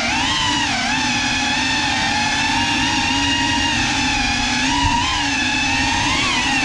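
GEPRC CineLog35 cinewhoop's brushless motors and ducted propellers whining steadily in flight, the pitch dipping and swelling briefly a few times as the throttle changes.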